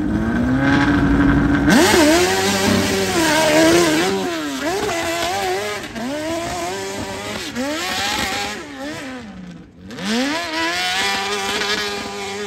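Hillclimb motorcycle engine held at high revs at the start gate, then launching about two seconds in and revving hard up a steep dirt hill. Its pitch rises and falls again and again as the throttle is worked, with a brief sharp drop about three-quarters of the way through before it picks up again.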